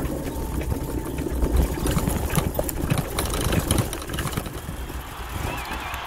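Ride noise of a solar electric tricycle in motion: a steady low rumble with frequent small rattles and knocks from the frame, easing off near the end.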